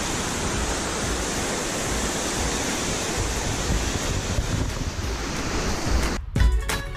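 Steady rush of a small rocky stream cascading over boulders. About six seconds in, it cuts off and background music with a beat starts.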